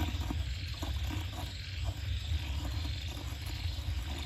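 A steady low rumble with a high hiss over it, and a few faint light knocks as a metal turntable holding a potted bonsai is turned by hand.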